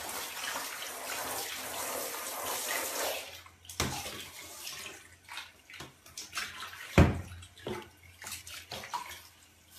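Handheld shower spraying water in a bathtub, a steady hiss for about three seconds, then quieter scattered splashes and drips. A single sharp knock sounds about seven seconds in.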